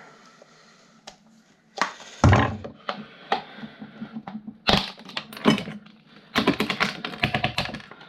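Hand tools and plastic desk-fan parts knocking and cracking as the fan is taken apart, a few sharp knocks and then a quick run of clicks near the end.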